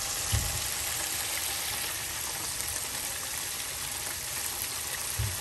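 Hot oil sizzling and bubbling steadily in an electric countertop deep fryer as squid deep-fries in the basket. Two soft, dull bumps, about half a second in and near the end.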